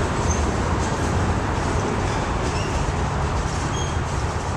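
Freight cars rolling past on the rails: a steady noise of steel wheels on track, with no distinct beat of wheel clicks.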